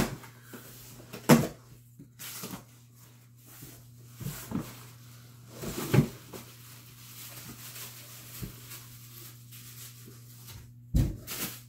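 Cardboard shipping box being torn open and tipped out, the boxed camera kit sliding out of it: scattered rustles and thumps, the loudest about a second in and about six seconds in, with a low steady hum underneath.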